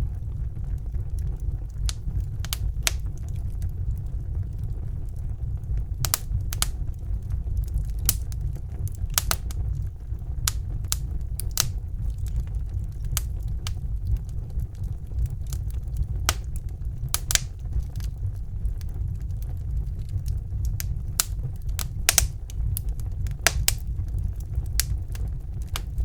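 Wood fire burning in a fireplace: sharp, irregular crackles and pops over a steady low rumble of the flames.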